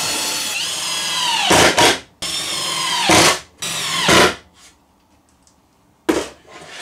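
Electric drill-driver running in three bursts, the first about two seconds long and the other two shorter, its pitch falling as it winds down at the end of each. A few knocks near the end.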